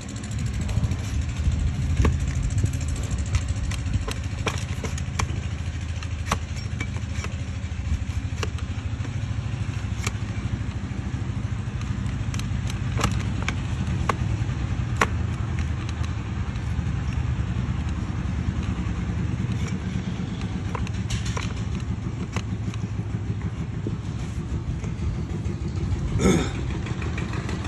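A flat steel hoof blade pares and shaves a donkey's hoof on a wooden block, giving scattered sharp cuts and knocks. Under it runs a steady low rumble like a running motor. Near the end there is a brief louder sound.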